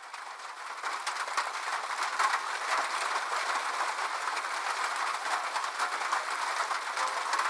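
Rain falling on a roof: a dense, steady patter of many small drop ticks over an even hiss, fading up over the first second and then holding steady.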